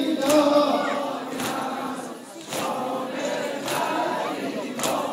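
A group of men chanting a noha, a Shia mourning lament, together, with a sharp beat about once a second that keeps the rhythm of matam (chest-beating).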